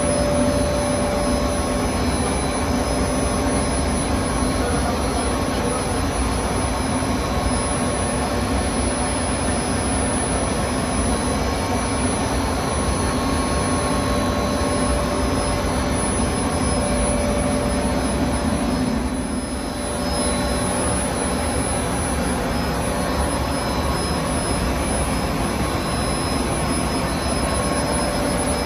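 Plastic-film printing machine running steadily in a bag factory, a continuous loud machine whir with several constant hum tones, dipping briefly about two-thirds of the way through.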